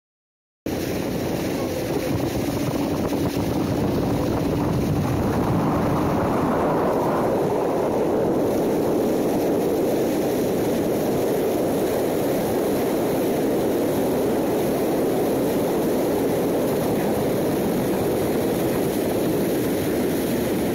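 Outboard motor of a coaching launch running steadily underway, with steady wind and water noise; the sound cuts in abruptly just under a second in.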